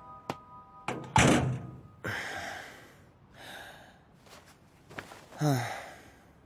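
A door shut hard about a second in, after a couple of light clicks, with a brief noisy tail after the impact. Near the end comes a short voice sound falling in pitch.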